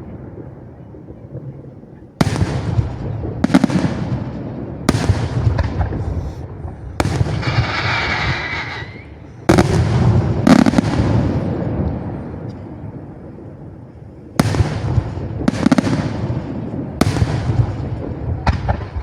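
Aerial firework shells bursting in a display: about ten sharp bangs, each trailing off in a low rumbling echo, with a lull of a few seconds in the middle and a quicker run of bursts near the end.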